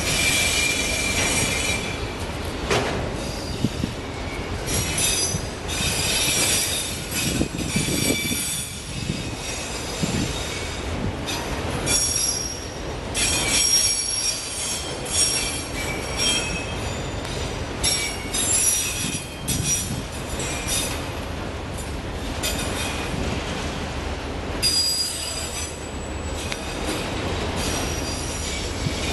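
Freight train of autorack cars rolling past, its wheels squealing high-pitched in repeated stretches of a few seconds over a steady low rumble.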